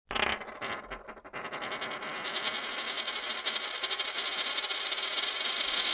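Logo sound effect for an animated end card: a sudden start, a short dip about a second in, then a steady high shimmering sound that cuts off abruptly.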